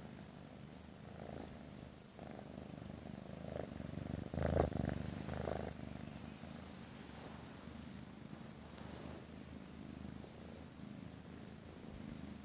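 Kitten purring close to the microphone while being stroked, a steady low rumble. About four and a half seconds in, a brief loud rustling bump from handling.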